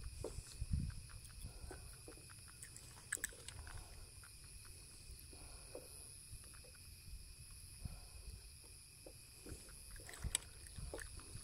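Faint rustling, scraping and scattered small clicks as a hand works a fish and a soft plastic lure in a nylon landing net, over a steady low rumble of handling noise.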